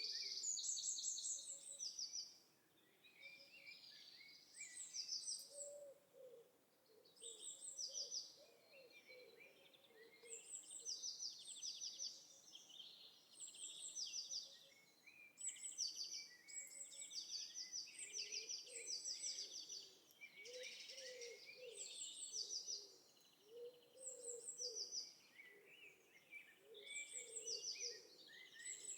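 Birdsong: several birds repeating short, rapid chirped trills, with a lower call coming and going underneath.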